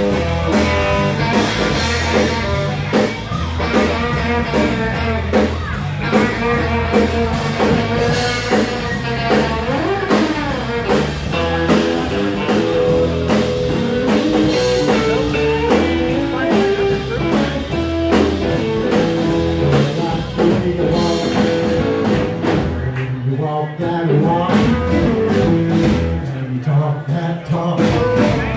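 Live blues-rock band playing: an electric guitar lead with bending notes over bass and drums. The bass and drums drop out briefly twice near the end.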